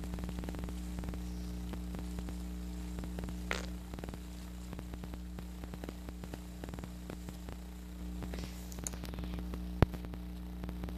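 Steady electrical hum and faint hiss, with small scattered clicks, a brief swish about three and a half seconds in, and one sharp click near the end.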